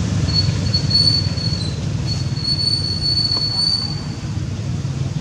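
Infant long-tailed macaque squealing: two thin, high-pitched, level squeals, each held for over a second, over a steady low rumble.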